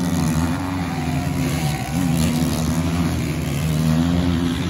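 Motocross bike engines revving, their pitch rising and falling again and again as the riders work the throttle.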